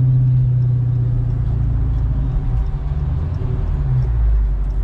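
A Dodge SRT Hellcat's supercharged 6.2-litre V8 running at low revs with a steady deep hum; past the middle its tone drops lower.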